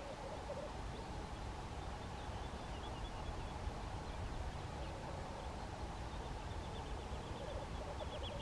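Male black grouse giving its bubbling display song, a low rolling cooing in phrases near the start and again toward the end, under steady wind rumble on the microphone.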